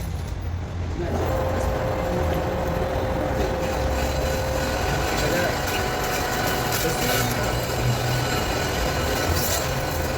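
A workshop machine running steadily, a constant whine over a rushing noise that fills in about a second in.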